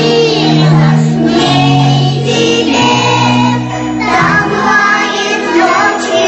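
A group of children singing together over a recorded backing track with held bass notes.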